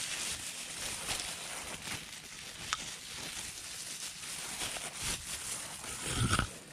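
Dry leaf mulch rustling and crackling, with light pattering as fertilizer is sprinkled by a gloved hand around the base of bean plants. One sharp click comes about two and a half seconds in, and a heavier bump comes near the end.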